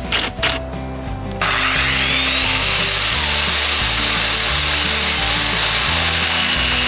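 Electric power tool starting about a second and a half in, its motor whine rising in pitch as it winds up and then running at steady speed, over background music.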